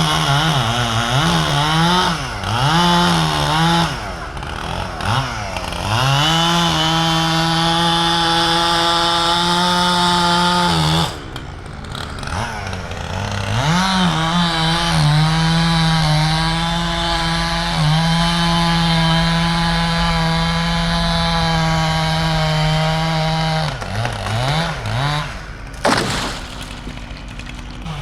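Two-stroke chainsaw revved a few times, then held at full throttle for two long stretches of several seconds, as in cutting wood. It drops back to idle about eleven seconds in and revs again near the end.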